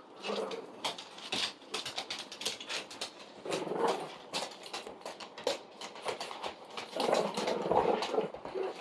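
A Presa Canario puppy and a Boston Terrier play-fighting on a hardwood floor: growling and grunting around four seconds in and again, loudest, near the end, over a run of quick clicks from claws and mouthing.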